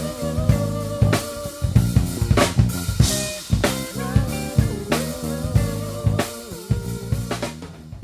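A band playing an instrumental passage with a full drum kit, snare and bass drum hits steady under sustained melodic notes. It fades out near the end.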